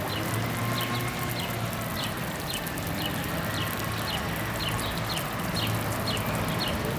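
A small bird repeating a short, high, downward-sliding chirp about twice a second over a steady low hum of city background.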